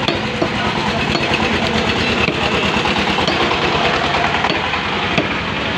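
A small engine running steadily, with a few faint knocks.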